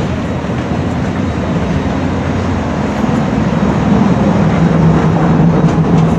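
R62A subway car in motion: a steady rumble and rattle of the ride. About two-thirds of the way through, a low steady hum comes in and the noise grows a little louder.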